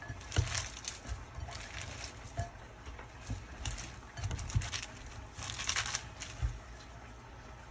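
Hands tossing a salad of chopped lettuce, tomatoes and cucumber in a glass bowl: the leaves rustle and crinkle in short, irregular bursts, with a few soft bumps.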